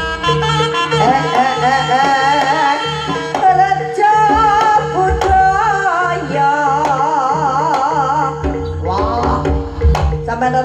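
Live jaranan ensemble music: hand drums beating over steady held low tones, with a wavering high melody line on top.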